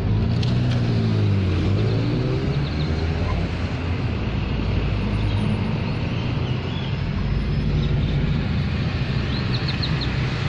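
Car engine and road noise heard from inside the cabin as the car drives. The engine note rises in pitch over the first few seconds as the car pulls away from a stop, then settles into a steady low rumble of engine and tyres.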